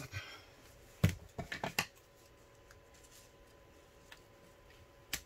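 Hands handling a rolled diamond painting canvas and a pair of scissors on a tabletop: a quick run of sharp clicks and taps about a second in, then quiet, with a faint tick as the scissors cut the tape holding the roll closed.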